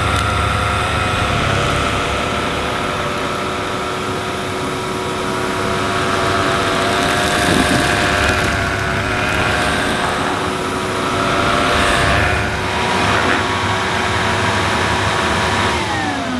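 Numatic Henry Hound HHR 200 canister vacuum cleaner running steadily with a whine, its turbo electric brush head being pushed over carpet. Near the end the whine starts to fall in pitch as the motor winds down.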